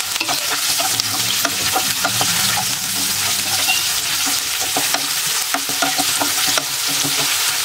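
Sliced onions frying in hot oil in a nonstick pan with whole spices: a steady sizzle. A spatula stirs them, making frequent light scrapes and taps against the pan.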